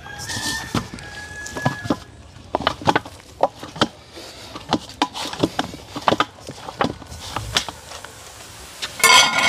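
Irregular knocks and clatter, typical of pots and cooking utensils being handled. A steady high call sounds for about the first two seconds, and a short loud pitched sound comes near the end.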